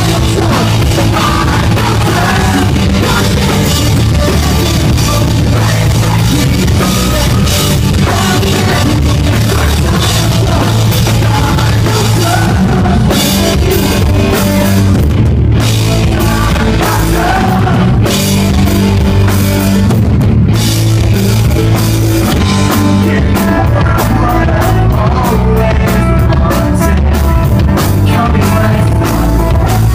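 Loud live pop-punk band performance: a drum kit, electric guitars and bass playing steadily, with a singer's voice on top.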